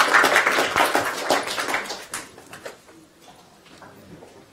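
Audience applause dying away over about two seconds, a few last claps, then the room goes quiet.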